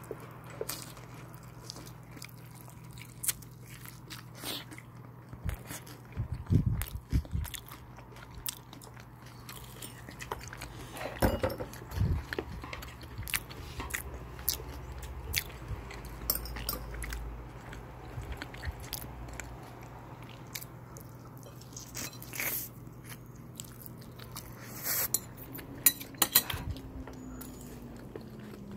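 Close-miked eating of sauced Korean fried chicken: bites and chewing that come as irregular clicks and snaps, a few louder ones about 6, 11 and 26 seconds in, over a steady low hum.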